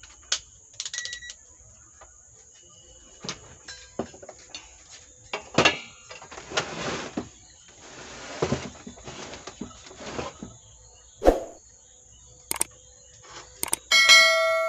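Amplifier module board being handled and fitted into the Sound Standard CA20 power amplifier's metal chassis: scattered clicks and knocks with scraping in between. Near the end comes a metallic clang that rings on with several tones.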